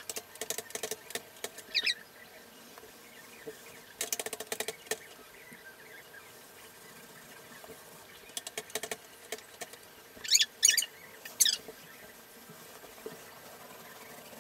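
Paint roller working wet latex paint, loaded in the tray and rolled onto the wall. It comes in short bursts of sticky crackling, with a few louder squeaky sweeps about two-thirds of the way in.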